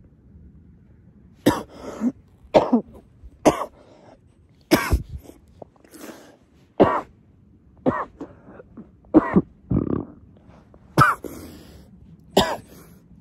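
A man's coughing fit: a long run of repeated coughs, some in quick pairs, starting about a second and a half in. It comes right after a strong hit of cannabis on the device's strongest (red) setting.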